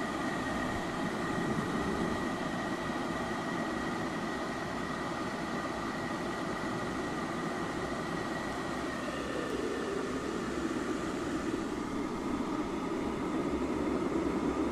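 Repaired electric kettle heating water: a steady hiss and rumble with a faint high tone that fades about nine seconds in, after which the rumble grows rougher and slightly louder as the water heats toward the boil.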